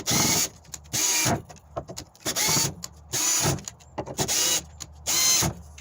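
Black & Decker GoPAK 12V cordless drill run in six short trigger pulses about a second apart, the motor whining up to speed in each half-second burst.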